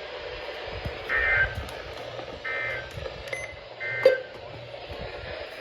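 Three short bursts of Emergency Alert System SAME data tones, about a second and a half apart: the warbling two-tone end-of-message code that closes an EAS alert. A sharp click follows just after the third burst.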